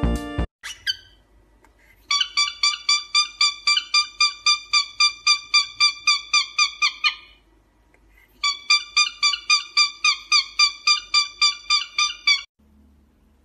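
Cockatiel calling in two long runs of quick, repeated whistled chirps, about four or five a second, with a short pause between. A strummed guitar tune cuts off at the very start.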